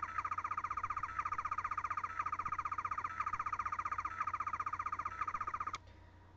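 11th Doctor sonic screwdriver toy playing its second hidden Easter egg sound effect: a rapidly warbling electronic tone that breaks off briefly about once a second, like a laser opening a door, cutting off abruptly near the end.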